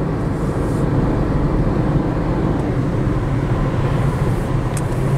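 Steady road noise of a moving car heard from inside the cabin, with a low hum running under it.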